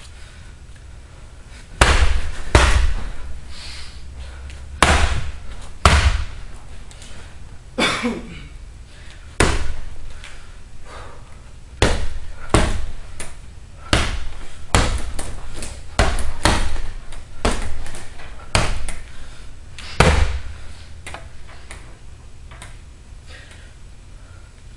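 Punches landing on a hanging heavy punching bag: about eighteen hard hits at uneven intervals, some in quick pairs, stopping a few seconds before the end.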